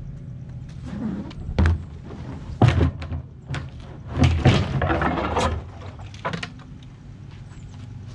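Hollow snap-jacket piling tube knocking and thudding as it is handled and lowered into the water around a piling. There are a few separate knocks, then a denser clatter from about four to five and a half seconds in.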